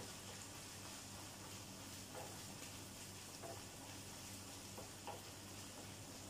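Ground meat sizzling faintly in a frying pan as a wooden spatula stirs it, with a few light scrapes and taps of the spatula against the pan.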